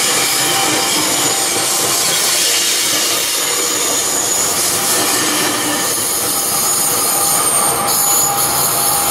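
Metrolink bilevel commuter train rolling past close by: a steady rush of wheel-on-rail noise with thin high wheel squeals over it.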